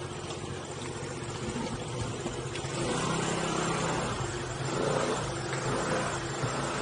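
Motorbike engine running at low speed, its note picking up about three seconds in.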